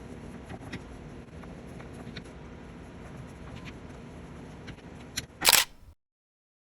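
Low steady shop room tone with a few faint ticks, then a small click and a loud, short snap about five and a half seconds in, after which the sound cuts out to dead silence.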